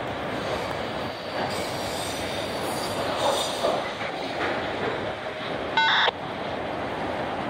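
Freight train of autorack and gondola cars rolling past, a steady noise of wheels on rail with faint high squeals. A short, loud high-pitched squeal comes about six seconds in.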